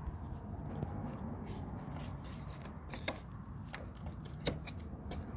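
Fingers handling the plastic wiring connectors of a motorcycle headlight: rustling and fumbling with a few sharp plastic clicks.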